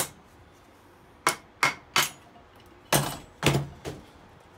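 A piston is knocked down into a Cummins 6CTA8.3 wet cylinder liner by striking its crown through a wooden block, which pushes the rings past the ring compressor. Six sharp knocks come in two groups of three.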